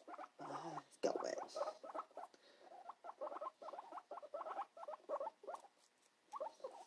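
Guinea pig chewing a piece of cucumber fed from the fingers: quick, repeated small crunching bites.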